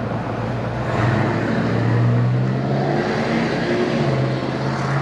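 Street traffic: a motor vehicle's engine hum, low and steady, swelling slightly about two seconds in.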